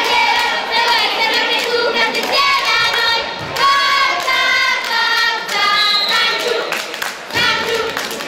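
A group of girls in the stands singing a fan chant together in high voices, clapping along.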